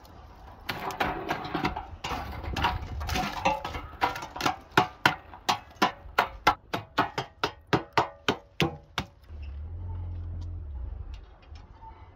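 Charred wood logs in a steel mangal being struck and broken up into coals: irregular crunching knocks at first, then a quick, even series of sharp knocks, about three a second, that stops after about nine seconds.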